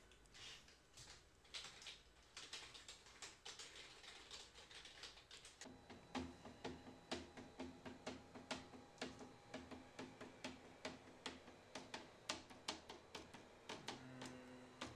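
Irregular, rapid clicking of typing on a computer keyboard. A low steady hum comes in about six seconds in.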